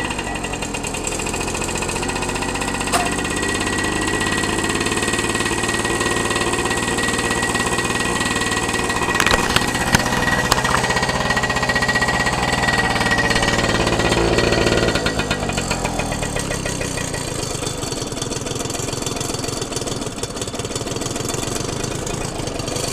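Suzuki single-cylinder motorcycle engine running just after starting up from months of sitting, following a tune-up with a new spark plug and fresh oil. It gets a little louder from about eight to fifteen seconds in, then settles back to a steady idle.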